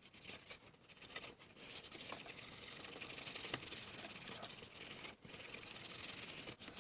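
Faint rubbing and scratching against an old camera's body, with light ticks and clicks from handling.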